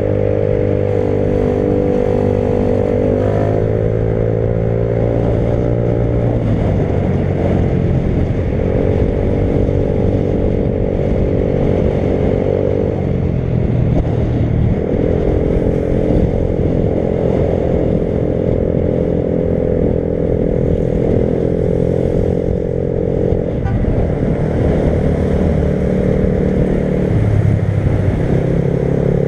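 Motorcycle engine running while riding, its note holding steady for stretches and changing pitch several times as throttle and gears change.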